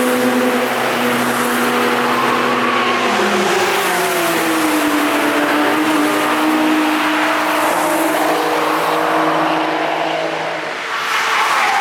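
Cars driving past at speed on a race circuit, engines running hard. Several engine notes overlap; one drops in pitch about three to four seconds in, and another car comes through loud near the end.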